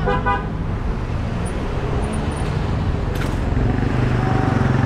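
Road traffic heard from a moving bicycle: cars and a motorcycle passing close by over a steady low rumble that grows louder near the end. A short pitched tone sounds right at the start, and a sharp click comes about three seconds in.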